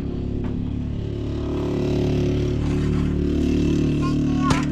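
An engine running at a steady speed, growing louder over the first two seconds, with a sharp click near the end.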